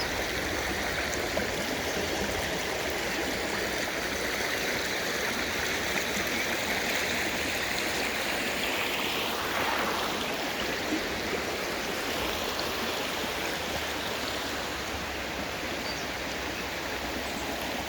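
A stream of water running steadily. About halfway through there is a brief swish that falls in pitch.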